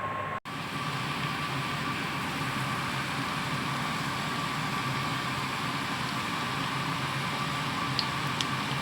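Steady mechanical hum and noise with a thin high whine, like a motor or engine running. It breaks off for an instant about half a second in, then runs on unchanged.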